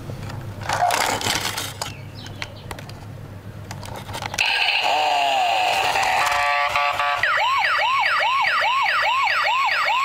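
Battery-powered toy police car switched on: a brief rustle of handling about a second in, then from about halfway its built-in speaker plays electronic start-up tones and then a rapidly repeating electronic siren, about two and a half sweeps a second.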